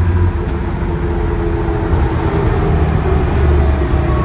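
Cabin noise of a 1998 New Flyer D40LF transit bus at freeway speed: the low drone of its Cummins ISC diesel engine over steady tyre and road noise. The drone eases just after the start and grows stronger again from about two seconds in.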